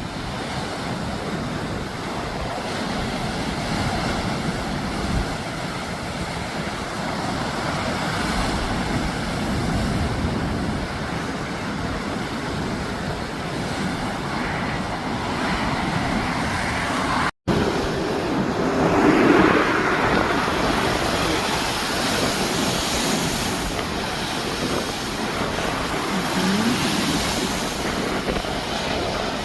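Rough sea surf breaking steadily under strong wind, with wind buffeting the microphone; the surge swells louder about 19 seconds in, just after a momentary dropout in the sound.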